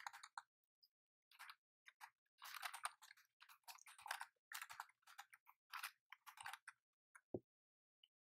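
Computer keyboard typing: faint, irregular keystrokes, some in quick runs, with one sharper key knock near the end.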